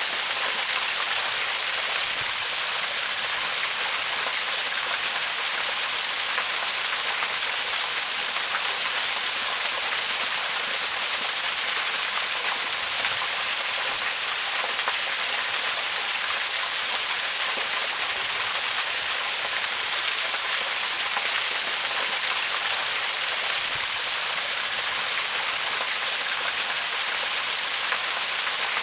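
Waterfall: a steady, unbroken rush of falling water. It is mostly high hiss with little low rumble.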